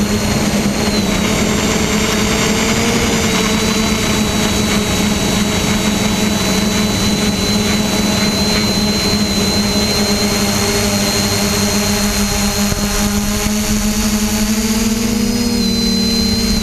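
Multirotor drone's electric motors and propellers in flight, heard close from its onboard camera: a steady buzzing whine over a rushing noise of air. The pitch shifts up a little near the end.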